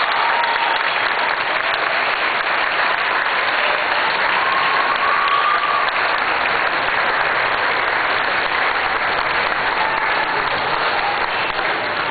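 Audience applauding steadily at the close of a speech.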